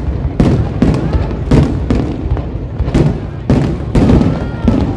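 Aerial fireworks shells bursting overhead in a rapid, steady run of booms, about two a second, over a continuous rumble.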